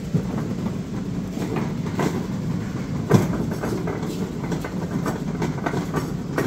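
Flatbed platform cart rolling over a smooth concrete floor, its wheels and steel frame rattling steadily, with a single clunk about three seconds in.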